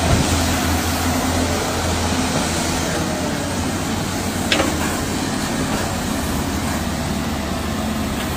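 Diesel engines of several Doosan and Sany crawler excavators running under load while digging, a steady low drone, with a single sharp knock about halfway through.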